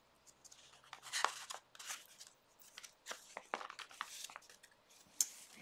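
Aged paper pages of a handmade junk journal being turned by hand: a string of short, soft paper rustles and flips.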